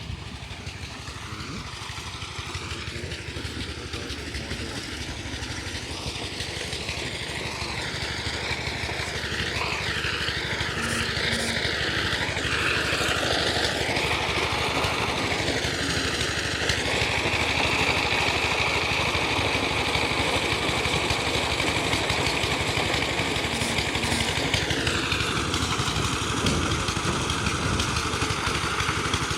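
Engine-driven maize sheller running steadily as shelling gets under way. The engine noise grows louder over the first several seconds, then holds steady.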